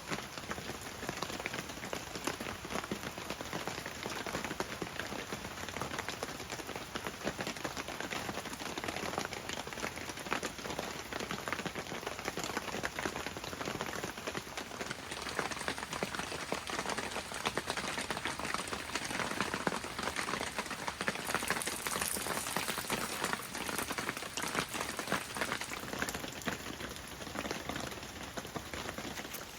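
Rain falling, a steady dense patter of drops.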